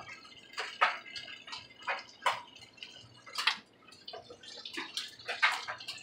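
Clothes being shaken out and dropped one by one into a top-loading washing machine tub: a string of irregular soft flaps and slaps, about one or two a second.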